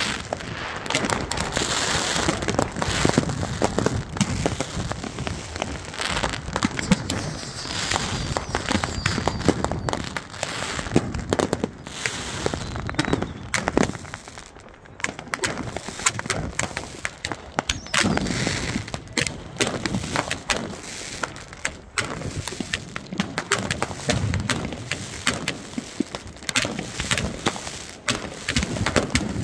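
Consumer fireworks going off: a near-continuous run of pops, bangs and crackling from a multi-shot cake firing shells that burst overhead, with a short lull about halfway through.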